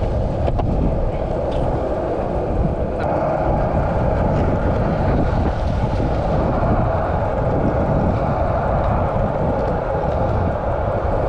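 Skateboard wheels rolling over asphalt: a loud, steady rumble that grows a little harsher about three seconds in.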